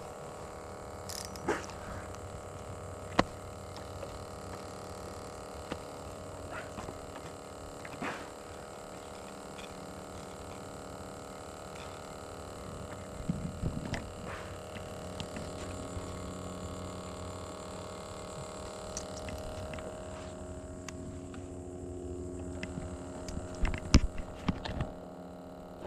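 Steady hum made of several held tones, with a few faint sharp clicks and knocks.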